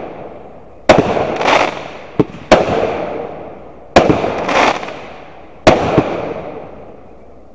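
A 63-shot consumer fireworks cake (Keystone Fireworks Jump Start) firing four shots about a second and a half apart, each a sharp bang followed by a fading, echoing tail with a second swell about half a second later.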